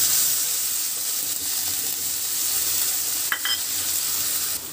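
Chopped tomato and onion sizzling in hot oil in a kadhai while being stirred with a steel spoon. A brief metallic clink about three seconds in.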